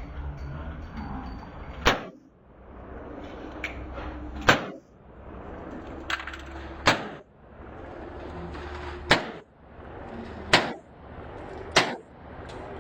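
Smith & Wesson M&P Competitor pistol fired six slow, deliberate shots, each a sharp crack, spaced about one to two and a half seconds apart. A steady low hum runs underneath.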